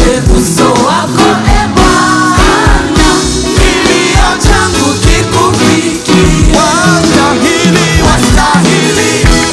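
Worship music: a singer's voice over a band with a steady drum beat and bass.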